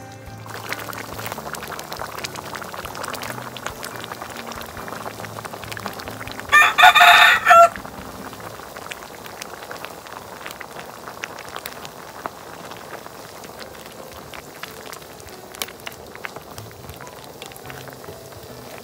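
A rooster crows once, a call of about a second in three joined parts, starting about six and a half seconds in. Under it, a steady crackle with light clicks, as a metal ladle stirs a pot of simmering eggplant curry.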